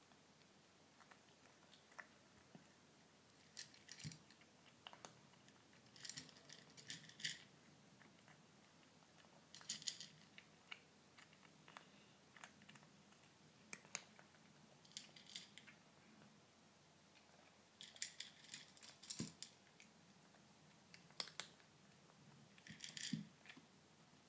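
A kitten crunching dry kibble, in short bursts of crisp crunches with pauses between them.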